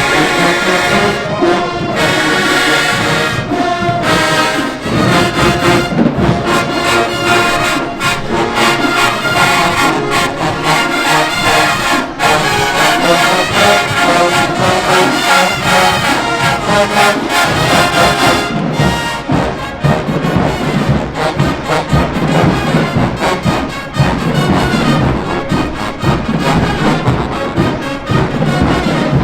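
HBCU-style marching band playing: loud brass (trombones, trumpets) over percussion.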